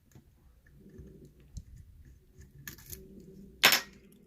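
Lock pick and tension wrench working inside a pin-tumbler challenge lock: faint scraping and small metallic ticks from the pick, with a sharp click about three and a half seconds in.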